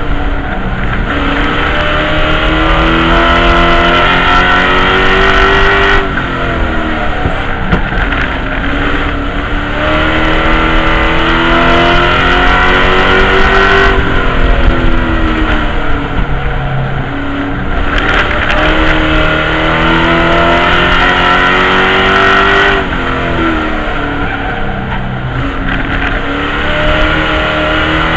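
Race truck engine heard from inside the cab, rising steadily in pitch under acceleration and then dropping sharply when the driver lifts. The cycle repeats roughly every eight seconds as the truck laps a short oval.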